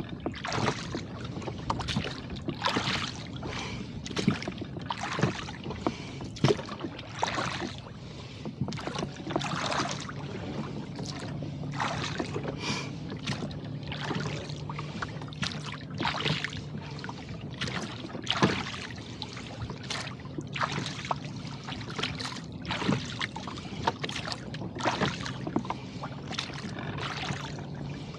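Rowboat under way through choppy water: oars dipping and chop splashing against the hull in a steady rhythm of about one splash a second.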